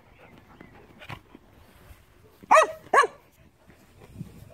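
A dog barking twice, loud and about half a second apart, a little past halfway through; each bark rises and falls in pitch.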